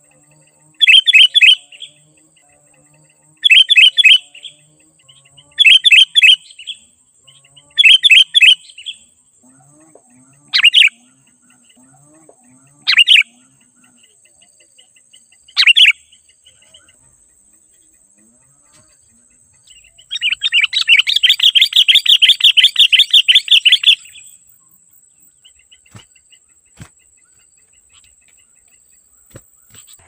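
Sooty-headed bulbul (kutilang) calling: four short bubbly phrases about two seconds apart, then three single sharp notes, then a long rapid chattering run of about four seconds past the middle. A faint steady high-pitched hum runs underneath.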